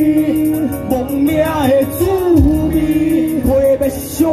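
Live Taiwanese Hokkien pop song: two male vocalists singing into handheld microphones over a backing track through a PA, the sung melody gliding and wavering over low bass thuds.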